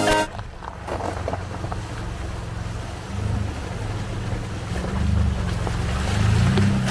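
Chevrolet Colorado pickup truck wading through a shallow icy stream: the engine's low rumble under the sound of water splashing and rushing around the tyres, the engine getting louder near the end as the truck pulls closer.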